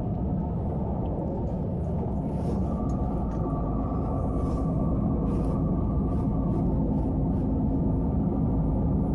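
Steady low rumble of a lorry's engine and road noise inside the cab while driving, with a few faint ticks here and there.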